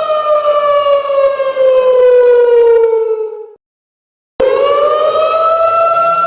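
Siren wailing: a single tone slides slowly down in pitch and fades out about three and a half seconds in. After a short silence it starts again abruptly and rises back up to a steady high pitch.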